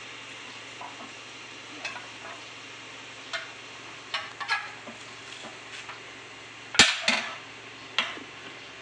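Suzuki Swift steering rack being handled and set onto the car's steel front subframe: a series of light metal clicks and knocks, with a loud metal clank about seven seconds in and another a second later.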